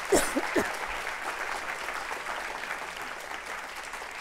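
Audience applauding, the clapping slowly dying away, with a couple of short calls from the crowd near the start.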